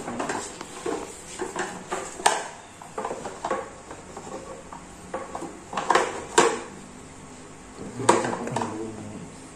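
Irregular light clinks and knocks of parts and tools being handled on a dirt bike, with a few sharper knocks now and then.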